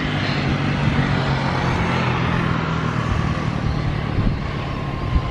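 Bombardier Global 7500 business jet taxiing, its two rear-mounted GE Passport turbofans at taxi power: a steady rumble with a thin, steady whine over it.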